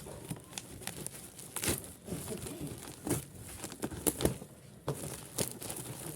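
Plastic packaging crinkling and rustling as it is handled and unwrapped, in irregular crackles with a few sharper ones.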